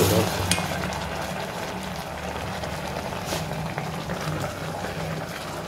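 Raw mango pieces simmering in sugar syrup in a steel pot, bubbling steadily as a plastic spoon stirs them, with a couple of light clicks of the spoon.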